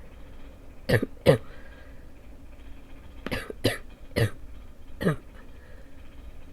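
A person's barking cough, left over from two weeks of illness: two sharp coughs in quick succession about a second in, then a fit of four more coughs about two seconds later.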